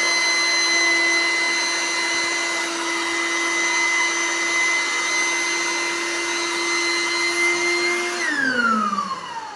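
Small 12-volt DC electric air pump running steadily with a high whine as it inflates an air mattress. About eight seconds in, the motor stops and its whine falls in pitch as it winds down.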